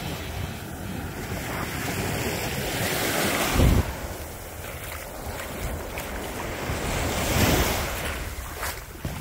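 Small waves washing up onto a sandy beach, the surf swelling twice, with wind gusting on the microphone.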